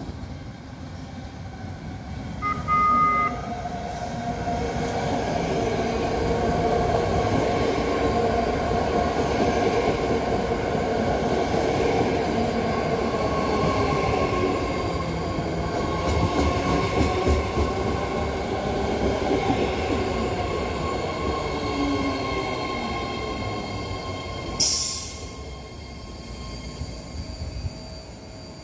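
BART train sounding a short two-tone horn as it approaches, then running in along the platform with a loud traction-motor whine that slides in pitch over the wheel rumble. A short sharp hiss comes near the end, after which the sound drops to a quieter steady hum.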